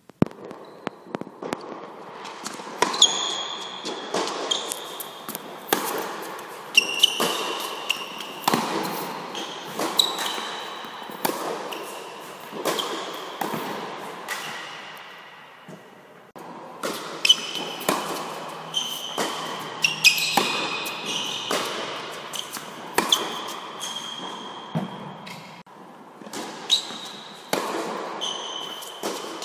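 Tennis balls struck back and forth in a rally on an indoor hard court: racket hits and ball bounces about every second, each echoing in the hall, with short high squeaks between the hits.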